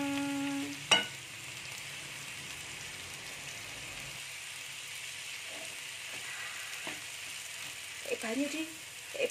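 Tempeh and long beans sizzling steadily in a hot wok while being stirred with a wooden spatula, with a sharp knock about a second in and a few faint scrapes.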